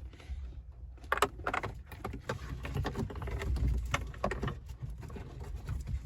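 Hands working RCA cables behind a car's dashboard and glove box: irregular plastic clicks, taps and rustling over a low rumble of handling noise.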